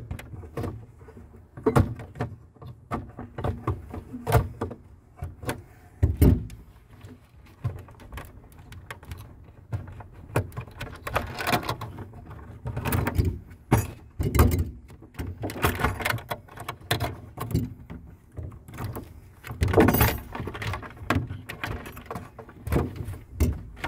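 Hands and tools working the wiring in a metal RV transfer switch box: irregular clicks and knocks of metal on metal and of wires against the enclosure as the terminal wires are loosened and pulled free, with several longer scraping, rustling stretches.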